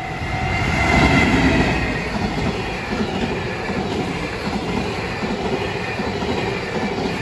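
Container freight train on the Tokaido Main Line passing at speed close by, a steady loud rumble of wheels on rail, loudest about a second in as the front of the train reaches the crossing. Thin high tones sound above the rumble.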